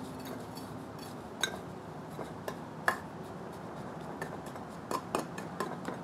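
Metal spoon clinking and scraping inside a crucible while stirring molten aluminum to break its partly frozen surface crust. There are several sharp clinks at irregular intervals over a steady low hiss.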